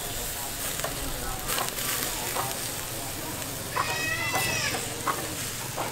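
Sausages sizzling on a wire grill over charcoal, with scattered crackles and clicks. About four seconds in comes a short, high-pitched animal call.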